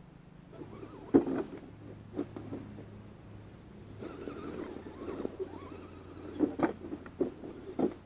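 Axial SCX10 RC rock crawler with a Pro-Line Deadbolt body scrabbling up a steep dirt bank and tumbling over, with sharp plastic knocks and clatters as the body and chassis hit the ground. There is one hard knock about a second in and a run of knocks near the end as it rolls back down. Its electric drivetrain hums faintly and steadily underneath.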